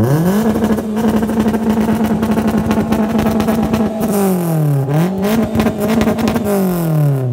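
Toyota Corolla iM's 1.8-litre four-cylinder engine revved through its exhaust: it climbs steeply and is held at high revs for about four seconds, drops briefly and is revved up again, then falls back toward idle near the end.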